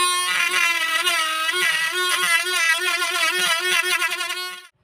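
Homemade mini drill's RS545 DC motor whining as its cutter routes into a grey plastic block, the pitch sagging briefly each time the bit bites under load. The whine cuts off abruptly near the end.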